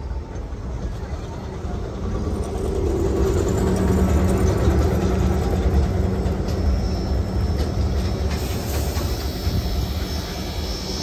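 A heritage steam train rolling slowly past along a platform: a steady low rumble of wheels on the rails. It grows louder about two seconds in as the auxiliary water tank and the tender of steam locomotive 3526 come by.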